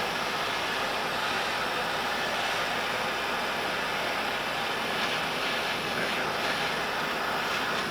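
Cutting torch hissing steadily as it cuts through a steel frame tube.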